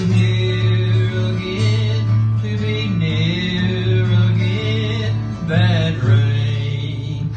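A man singing a slow waltz live to his own acoustic guitar, with long held notes.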